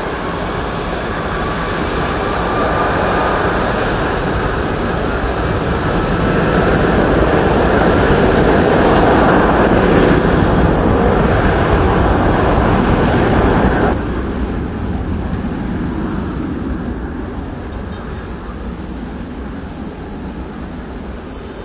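Airbus A330-300's Rolls-Royce Trent 700 jet engines at takeoff power, a loud jet roar with a faint rising whine that builds to a peak. About two-thirds of the way through it drops suddenly to a lower level and then fades away as the airliner departs.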